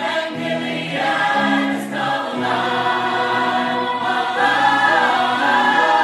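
A musical theatre song: several voices singing together in long held notes, with music underneath.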